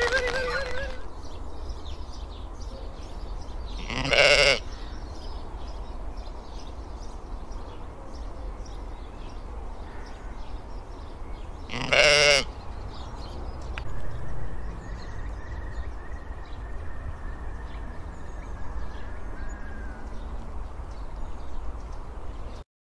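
Domestic sheep bleating: two loud bleats, about four seconds in and again about twelve seconds in, with a fainter call soon after, over a steady low background noise.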